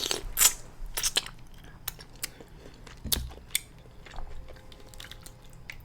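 Close-miked mouth sounds of a person chewing and biting food, with irregular sharp clicks.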